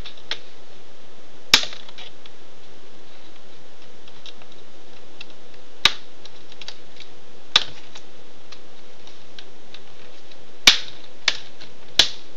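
Plastic clips of an Acer Aspire One laptop's screen bezel snapping loose one at a time as a flat-head screwdriver pries the bezel from the casing. About six sharp clicks a few seconds apart, three of them close together near the end, over a steady hiss.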